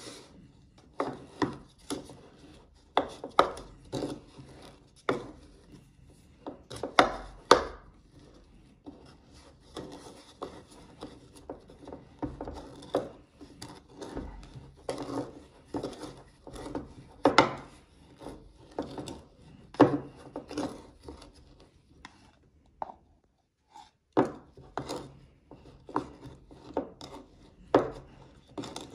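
Pestle pounding and grinding jelly candies in a mortar: irregular knocks of the pestle against the mortar, with scraping and rubbing between strikes. It pauses briefly about two-thirds of the way through.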